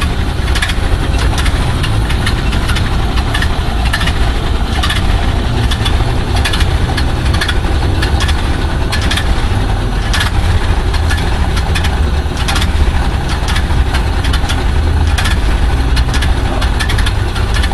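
1929 Ford Model A truck's four-cylinder engine running steadily at idle, a constant low drone with irregular sharp clicks over it.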